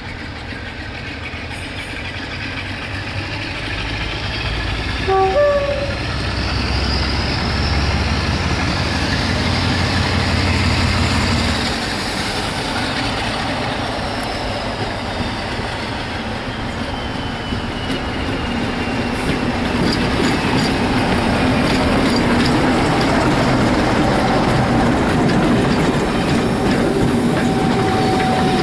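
Diesel-hauled passenger train approaching and passing, with a short horn blast about five seconds in. The coaches follow with a steady rush and the clatter of their wheels on the rail joints, growing louder as they go by.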